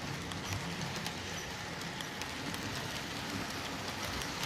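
Model trains running on the layout: a steady rumble of small wheels and motor on the track, with light, scattered clicks.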